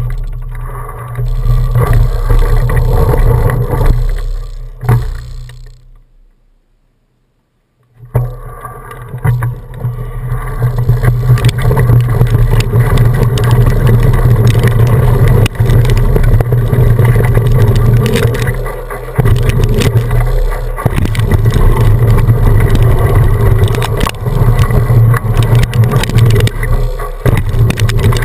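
Mountain bike ride heard from an action camera: loud wind buffeting and tyre rumble over a rough trail, with many small knocks and rattles. The sound fades and drops out for about two seconds some six seconds in, then comes back at full level.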